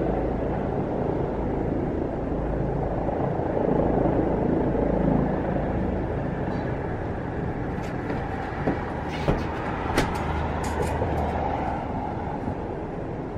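Helicopter engine and rotor running steadily, a low hum under a broad hiss that slowly grows quieter. A few sharp clicks come about two-thirds of the way through.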